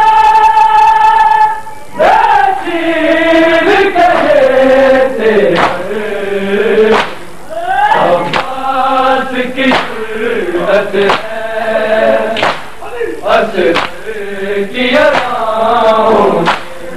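Men chanting an Urdu noha lament. A lead voice holds one long note, then runs on in a wavering, gliding melody. Sharp slaps of hands on bare chests (matam) land about once a second.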